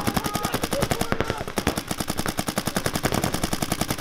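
Paintball markers firing in rapid, continuous strings, many sharp shots a second.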